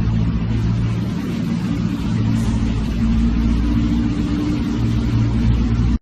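A car engine running with a steady hum that weakens for about a second and then picks up again. It cuts off abruptly at the end.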